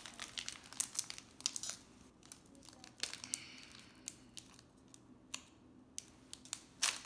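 Foil wrapper of a Pokémon TCG booster pack crinkling as it is handled and torn open. There is a dense run of crackles in the first two seconds, then sparser crackles, with one sharp loud crackle near the end.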